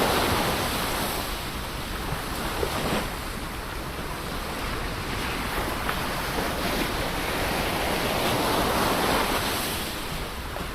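Ocean waves surging and washing on the shore in a steady rush of surf. The sound swells at the start and again a little past three-quarters of the way through, with faint crackles in between.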